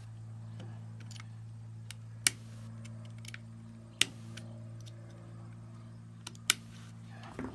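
A few sharp clicks of small steel Glock 19 pistol parts being handled and fitted during reassembly, the loudest about two, four and six and a half seconds in. A steady low hum runs underneath.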